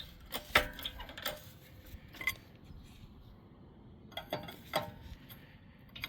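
A few sharp metallic clicks and clinks with a quiet pause in the middle, from a strap being ratcheted tight to pull a beadlock wheel out of its tire.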